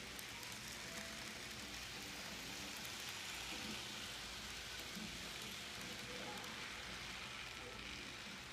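Model freight trains running on sectional track, giving a steady hiss of noise that swells slightly about three and a half seconds in as a train passes close.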